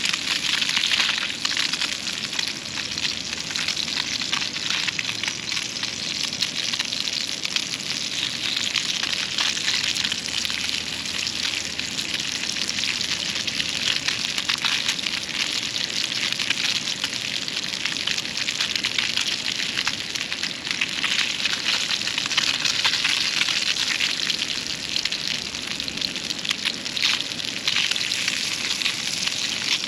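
Fish frying in a pan over a campfire: a steady sizzle with many small crackles and pops.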